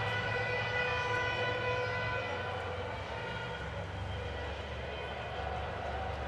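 Street demonstration heard from afar: a dense din of traffic and a shouting crowd, with long held horn-like tones over a steady low engine rumble.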